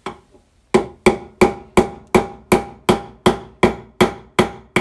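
Ball-peen hammer striking a roll pin punch to crimp a copper lug onto a zero-gauge battery cable held in a vise: one blow, then a steady run of about a dozen blows, roughly three a second, each with a short metallic ring.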